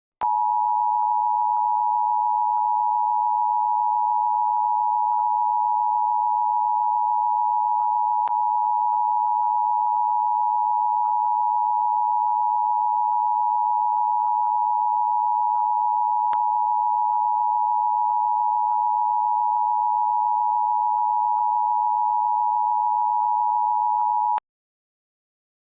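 Emergency Alert System attention signal: a loud, steady two-tone alarm held unchanged for about 24 seconds, then cut off suddenly near the end.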